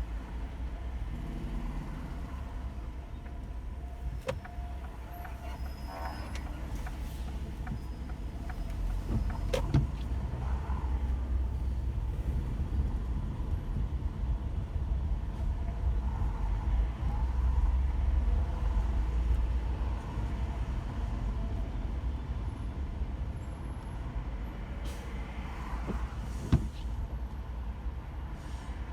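Car driving in slow, congested city traffic, heard from inside the car: a steady low road and engine rumble, with a sharp knock about four seconds in, another near ten seconds, and a louder click near the end.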